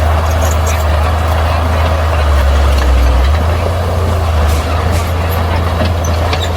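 Bulldozer's diesel engine running with a steady deep drone, shifting slightly lower for about a second near the middle.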